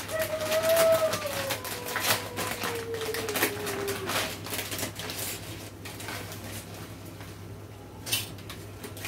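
Crinkling of a plastic noodle packet and rapid clicking of dry tallarines as a bundle is pulled out and pushed into a pot of boiling water. The clicks are busiest in the first few seconds and thin out later, with one more sharp crackle near the end.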